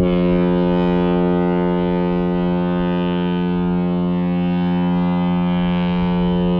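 A ferry's horn sounding one long, steady blast with a deep pitch, cutting off sharply near the end.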